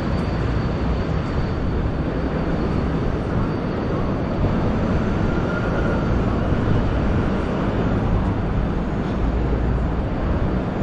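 Steady city street noise: a dense rumble of traffic, heavy in the low end, with no single sound standing out.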